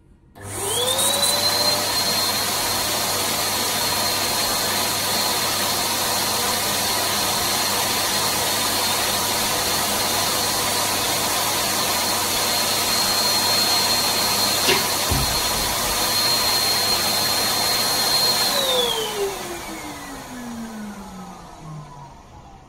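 Electric balloon pump starting up with a rising whine, running steadily with a high-pitched whine and airy rush as it inflates a crystal latex balloon, then switched off and winding down with a falling whine. About fifteen seconds in there is a short sharp crack, the balloon bursting on the pump.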